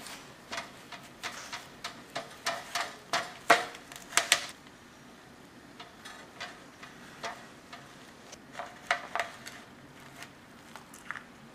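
Knife slicing through a baked pie in an aluminium foil pie pan, the blade clicking and scraping against the pan: irregular sharp clicks, thick in the first four seconds or so, then sparser.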